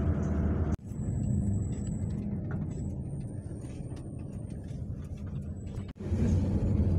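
A motor vehicle running: a steady low engine rumble, broken off abruptly twice, with a quieter stretch in between that carries a faint high whine.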